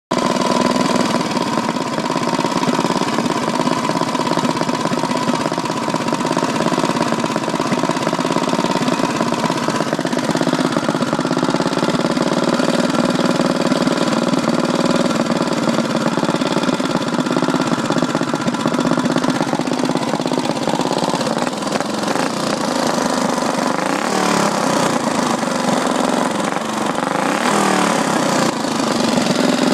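5 hp Briggs & Stratton flathead single-cylinder four-stroke go-kart engine running steadily. Near the end its speed rises and falls.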